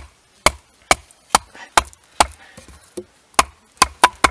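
A wooden baton striking the spine of a Nessmuk knife, driving the blade down through a knot in a split log. The strikes are sharp, about two a second, with a short pause a little after two seconds in before they resume.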